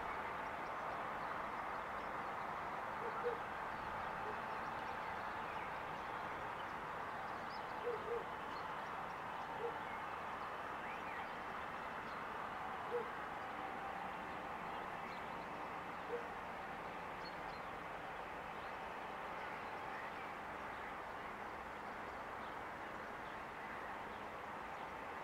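Canada geese giving a handful of short, low calls, about six spread through the first two-thirds, over steady background noise.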